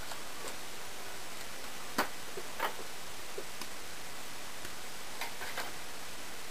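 A few scattered light taps and clicks of tools being handled and set down on a wooden workbench, the sharpest about two seconds in, over a steady background hiss.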